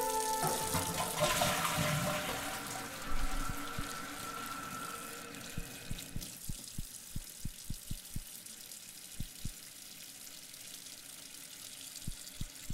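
Sink tap running a thin stream of water into a basin, the hiss fading away after about six seconds. Then a run of soft, evenly spaced low thuds, about three a second, starting about five seconds in, with a few more near the end.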